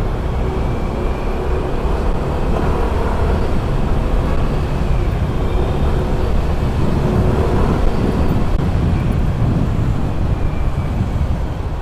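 Motorcycle engine running steadily at low riding speed, a continuous low rumble with a faint whine over it.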